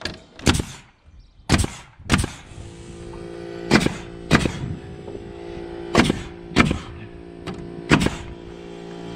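Ridgid nail gun firing nails into a wooden fascia board: about eight sharp shots at irregular intervals, some in quick pairs. A steady hum sets in about two and a half seconds in and runs under the shots.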